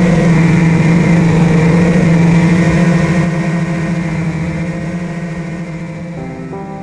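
5-inch FPV quadcopter's four 2306 2300 kV brushless motors running with a steady, strong hum. The hum fades over the second half as piano music comes in near the end.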